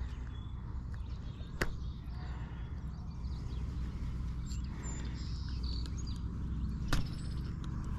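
Handling noise as a hooked smallmouth bass is held and unhooked by hand: two sharp clicks, one about one and a half seconds in and one near the end, over a steady low rumble.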